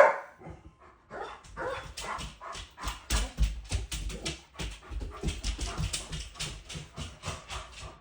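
German shepherd whimpering and huffing excitedly in short quick sounds, about five a second.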